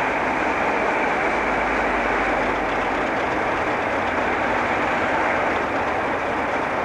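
Railway rotary snowblower working through a deep drift, its cutter head blasting a plume of snow clear of the line: a steady rushing noise with no change in level.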